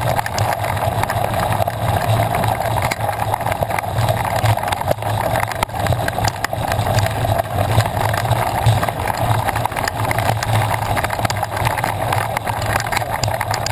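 Mountain bike rolling fast over a dirt and gravel trail: a steady rush of tyre noise and wind on the microphone, with frequent small clicks and rattles from the bike on the rough ground.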